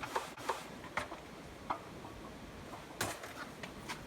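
A few scattered light clicks and taps of tools and parts being handled, with a small cluster about three seconds in.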